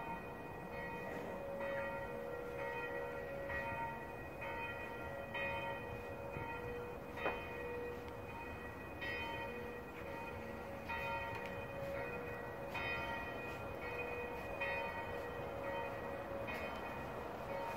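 Church bells ringing in a steady peal, several bells of different pitches striking about once a second, their tones overlapping over a steady background hiss. A single sharp click comes about seven seconds in.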